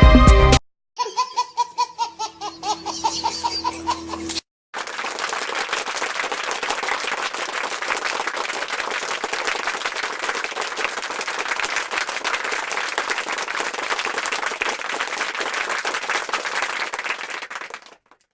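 A few seconds of laughter in quick rhythmic pulses that fall in pitch, then a long stretch of applause that cuts off near the end.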